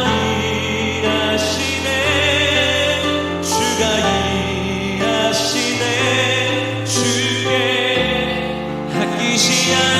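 Worship song: voices holding long sung notes with vibrato over a sustained instrumental accompaniment.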